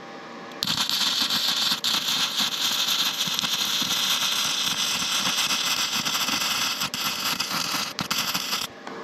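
Electric arc welder laying a weld bead on steel, a steady spitting crackle that starts about half a second in, breaks off briefly once near two seconds, and stops near the end. The welder wonders whether the amperage is too low.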